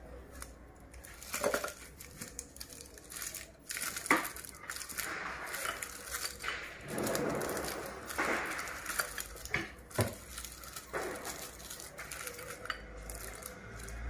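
Candy wrappers crinkling and wrapped sweets clicking against a ceramic dish as they are set out by hand, with a few sharp clicks, the loudest about four seconds in.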